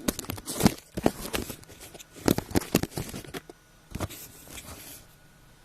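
A quick run of clicks and knocks, bunched in two clusters with a last knock about four seconds in, typical of a phone or microphone being handled while the recording is set up.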